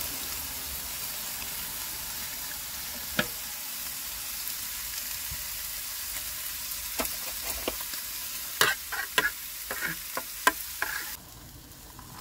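Food sizzling steadily in a frying pan on a portable gas stove, with a metal utensil clinking against an aluminium mess tin as a gravy-like sauce is stirred. There is one clink about three seconds in and a quick run of clinks in the second half. The sizzle cuts off about eleven seconds in.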